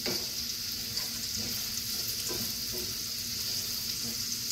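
Sliced purple onions and garlic sizzling in oil in a frying pan, stirred with a wooden spatula: a steady frying hiss with a few faint stirring ticks.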